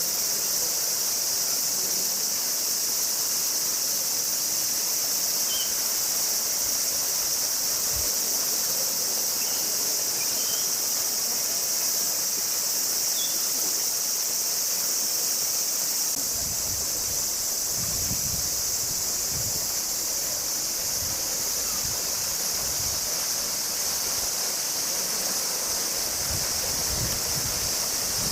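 Steady high-pitched drone of a cicada chorus, unbroken throughout. Irregular low rumbles come in from about halfway through.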